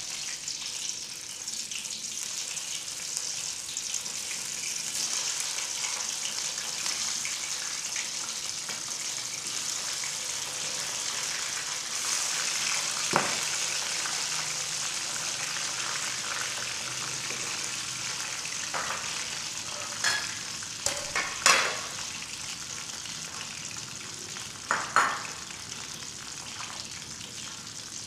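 Pieces of spice-braised (ungkep) chicken frying in hot oil in a wok, giving a steady sizzle. A few sharp clicks come about halfway through and again near the end.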